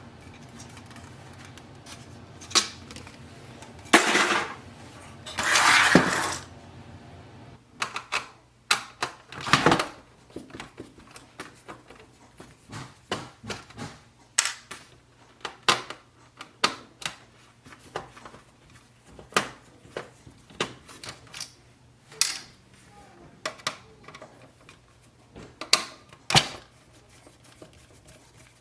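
Small clicks and knocks of a screwdriver and plastic printer parts being worked and handled during disassembly, scattered irregularly, with a louder scraping rattle about four to six seconds in.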